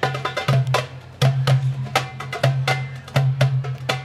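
Hand drumming on a goblet drum (doumbek): a quick rhythm of sharp, crisp strokes, with deep ringing strokes falling among them.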